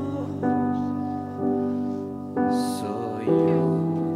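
Live worship band playing a slow song: held keyboard chords that change about once a second, with a brief soft cymbal-like hiss about two and a half seconds in.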